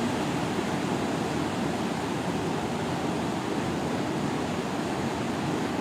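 Kabul River in flood, its fast water rushing past in a steady, unbroken wash of noise.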